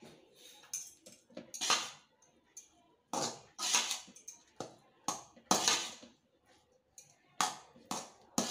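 A slotted ladle stirring and scraping cooked rice around a metal pot, mixing in tamarind paste. It comes as a run of irregular scraping strokes, one or two a second.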